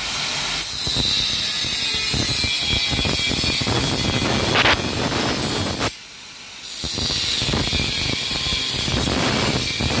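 Handheld angle grinder with a cut-off disc cutting through perforated steel cable tray: a steady high whine over a dense rasping of the disc biting the metal. The cut drops away for under a second about six seconds in, then resumes.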